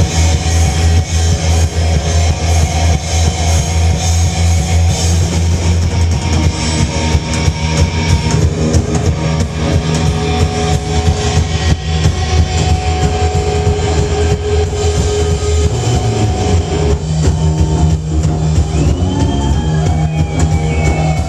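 Rock band playing loud live: distorted electric guitar over bass and a drum kit, heard from within the audience in a club.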